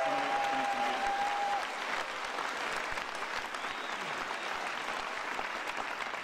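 Large audience applauding, denser at first and thinning slightly after about a second and a half. A steady high tone over the clapping stops about a second and a half in.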